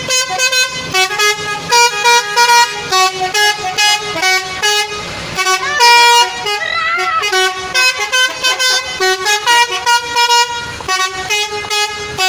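Telolet multi-tone musical vehicle horns sounding loudly in quick runs of short toots at different pitches, forming a choppy melody.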